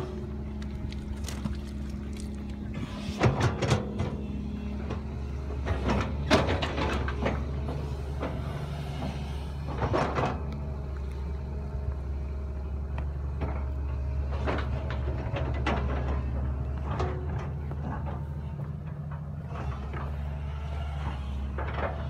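Concrete mixer pump's diesel engine running steadily, with irregular sharp knocks and clanks over it every few seconds.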